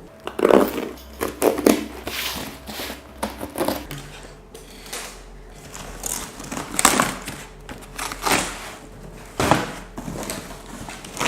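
Cardboard shipping box being opened and handled by hand: irregular scraping, tearing and rustling, with a few louder strokes about half a second, seven and nine and a half seconds in.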